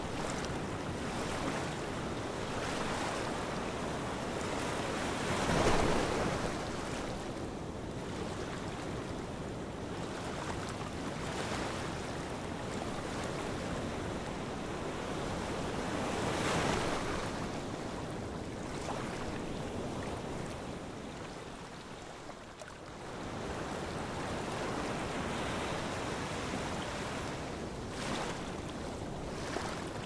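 Ocean surf: waves washing onto a beach in a steady hiss, swelling louder about a fifth of the way in and again around the middle, and easing off briefly about three quarters of the way through.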